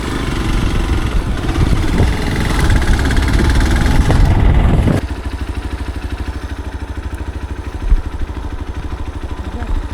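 Motorcycle riding along with loud engine and road noise. About halfway through it drops to a steady idle with an even, rapid pulse, with one brief thump near the end.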